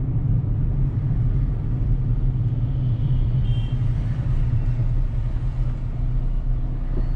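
Steady low rumble of a car driving on a city road: engine and tyre noise.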